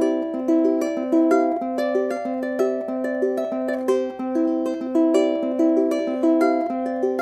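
Outro music: a plucked-string tune picked in a quick, even rhythm.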